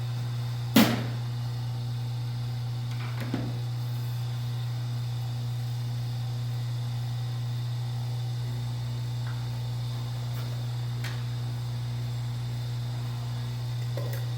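A steady low electrical-sounding hum, with one sharp click about a second in and a few fainter clicks and taps later.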